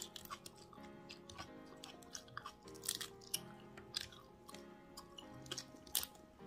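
Faint, irregular crackling clicks of whole steamed shrimp being peeled by hand and eaten, over soft background music.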